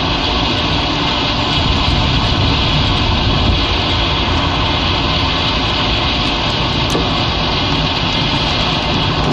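Heavy thunderstorm rain falling hard and steadily, a loud, even roar with no let-up.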